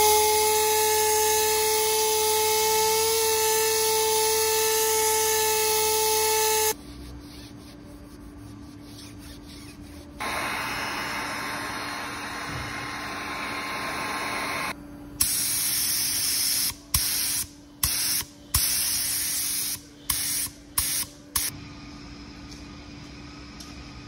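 Paint being sprayed onto an alloy wheel. First comes one long spray hiss with a whistling tone, lasting about seven seconds. A quieter steady hiss follows for about five seconds, then about seven short on-off bursts of spraying.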